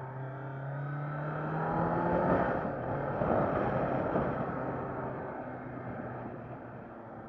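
Kawasaki Z900 inline-four engine, heard from the rider's seat, pulling hard in second gear with its pitch rising. About two seconds in it shifts up to third, and a loud rush of wind takes over. The engine then eases off as the bike slows, its sound fading toward the end.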